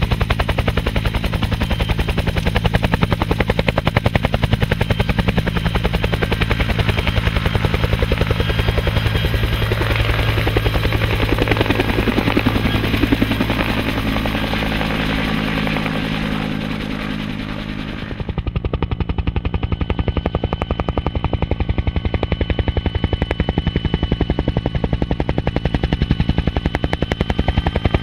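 Bell UH-1 Huey helicopter running close by: the two-bladed main rotor beats in a fast, even thump over the turbine engine. About two-thirds of the way through, the sound changes abruptly to a duller one with a thin steady whine on top.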